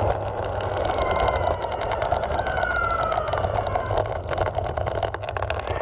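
Evolve Carbon GT electric skateboard rolling over asphalt: a steady rough wheel rumble with many small clicks and ticks from grit and cracks. A faint thin whine slides down in pitch about two seconds in.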